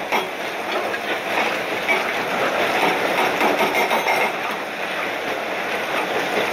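New Holland Kobelco E305C hydraulic excavator at work, its diesel engine running under load while the bucket digs into broken quarry rock, making a steady, dense rumble and rattle.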